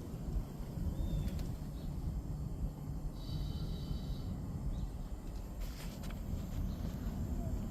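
A semi truck's tire inflation system letting air through, making a rough, low, snore-like sound. A brief high whistle comes about three seconds in.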